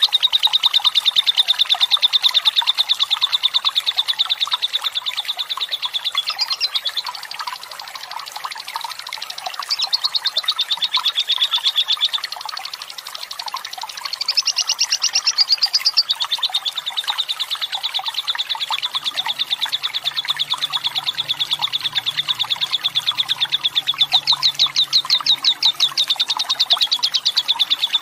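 Lovebird singing its long 'ngekek' song: a rapid, sustained chattering trill at one high pitch, broken by a few short pauses, over the steady rush of running water.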